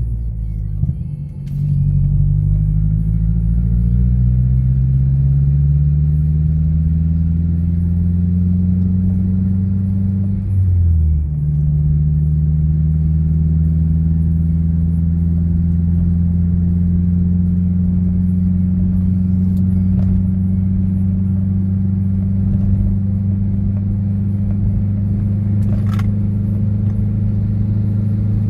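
Mazdaspeed6 turbocharged 2.3-litre four-cylinder engine with a 3-inch exhaust and Apexi N1 muffler, heard from inside the car as a low drone: the revs climb for several seconds, drop sharply at a gear change about ten seconds in, then hold steady while cruising.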